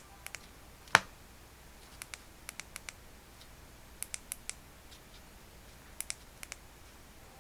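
Scattered light clicks and taps from handling a multimeter and its test probes, with one sharper click about a second in and small groups of ticks after it.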